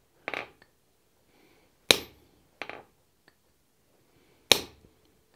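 Hand hammer striking a pointed punch held on a red-hot steel block on the anvil, stamping dimples into the hot steel: four sharp metallic blows, the heavier ones about two seconds in and near the end, each with a brief ring.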